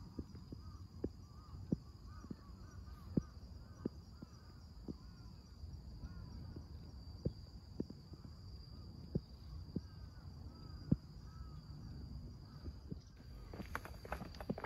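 Footsteps of a person walking outdoors, with birds calling repeatedly in the background over a steady high insect drone. About a second before the end the steps turn louder and more frequent.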